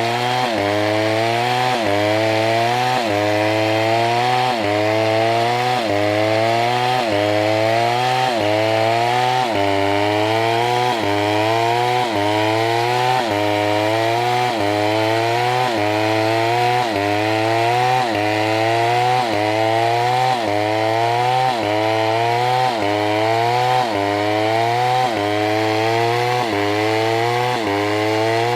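Chainsaw engine running hard, its pitch jumping up and then sagging about once a second in a very even, repeating cycle.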